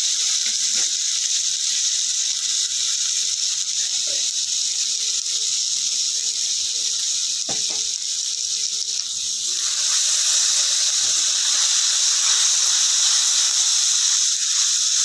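Chopped vegetables sizzling in oil in an aluminium kadhai: a steady high hiss that grows louder about two-thirds of the way through as they are stirred with a spoon, with a few light taps near the middle.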